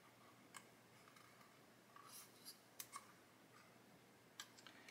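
Near silence broken by a handful of faint, short clicks: a plastic scale-model stowage basket being pressed and worked with the fingers onto its locating points on a tank turret, not yet seating.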